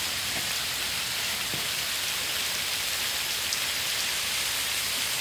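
Hail falling steadily, a dense, even hiss of small hailstones striking leaves and ground, with a few sharper ticks.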